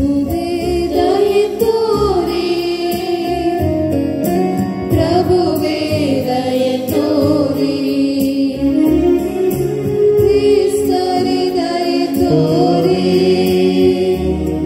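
Sung liturgical hymn at Mass, voices singing together over a sustained chordal accompaniment.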